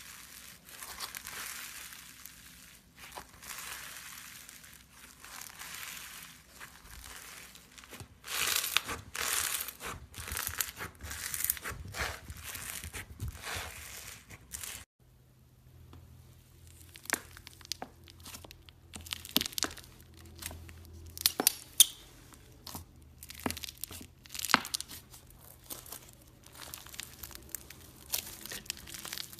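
Crunchy slime being squeezed and pressed by hand, crackling and popping. For the first half the crackle is dense and continuous, growing louder; after an abrupt cut about halfway through, it comes as sharper, separate pops.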